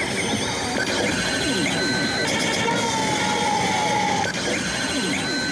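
Oshu! Salaryman Banchou pachislot machine playing its electronic bonus-round sound effects: high steady tones that switch on and off, and one long, slightly falling tone midway. Behind them is the dense, clattering din of a pachislot parlour full of machines.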